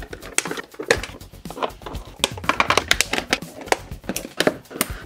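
Thin molded plastic packaging insert crackling and clicking irregularly, a rapid run of sharp snaps, as the toy is pulled free of it by hand.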